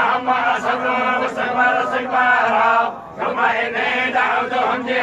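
Men chanting the Quran together in a group recitation, their voices held on a steady shared pitch; the chant breaks off briefly about three seconds in, then resumes.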